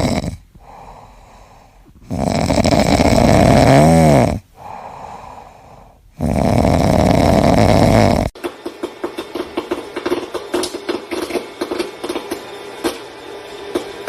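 Loud snoring: two long, rasping snores of about two seconds each, with quieter in-breaths between them. From about eight seconds in, a rapid run of short ticks and clicks takes over.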